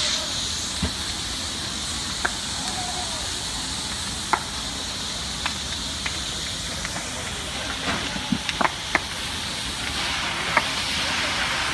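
Building fire burning: a steady hiss with scattered sharp cracks and pops, several close together about eight to nine seconds in.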